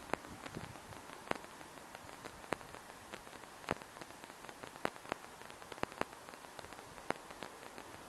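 Heavy summer rain falling steadily, with single large drops landing close by as sharp, irregular taps, several of them a good deal louder than the rest.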